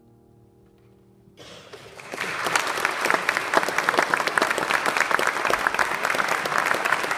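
A piano's last chord dies away, then about a second and a half in an audience breaks into applause, quickly building to steady, full clapping.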